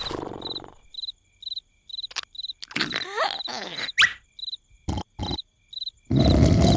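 Cartoon sound effects: a steady cricket-like chirping, about two chirps a second, with a few short clicks and squeaky gliding sounds. A loud, rumbling snore cuts in suddenly near the end.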